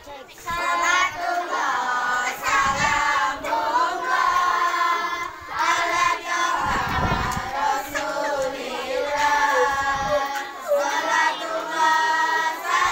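A group of schoolgirls singing together, their voices continuous throughout.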